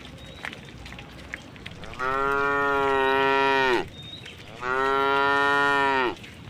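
A cow mooing twice: two long calls of about a second and a half to two seconds each, with the pitch dropping at the end of each.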